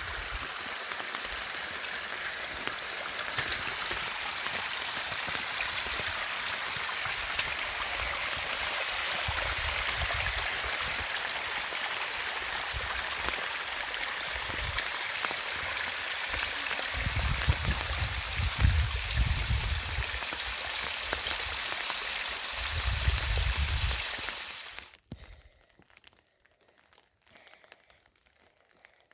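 Steady hiss of rain and running water, with low rumbles coming and going in the second half. It cuts off abruptly near the end, leaving only faint ticks.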